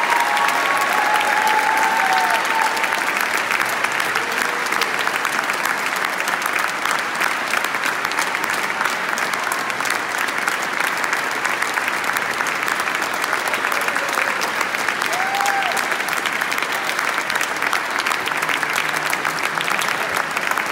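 Large audience applauding steadily, dense clapping from many hands.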